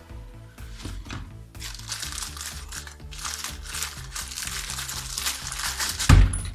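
Clear plastic packaging bag crinkling and rustling as a new brake caliper piston is unwrapped by hand, ending in a short thump about six seconds in.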